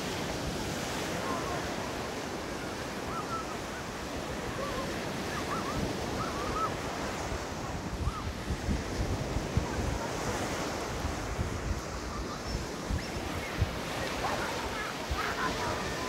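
Surf from a rough sea breaking on a sandy shore, with wind rumbling on the microphone.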